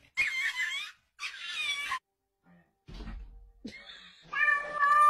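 A pet animal's cries: two short wavering calls, a few low knocks about three seconds in, then one long, steady, high-pitched call near the end.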